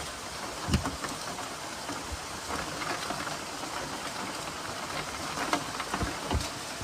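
Steady rain falling: an even hiss with scattered sharp drop taps and a couple of low thumps.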